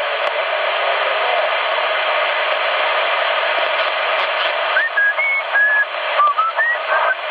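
Steady band-noise hiss from a CRT SS 9900 CB transceiver receiving upper sideband on 27.555 MHz, with no station coming through. Several short whistles at different pitches cut in over the hiss in the last few seconds.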